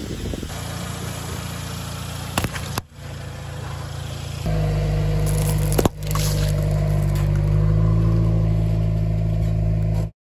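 Car engine running steadily at low speed close to the ground, its hum getting louder about four and a half seconds in, with a sharp crack about six seconds in as the tyre crushes a drink carton. The sound cuts off abruptly near the end.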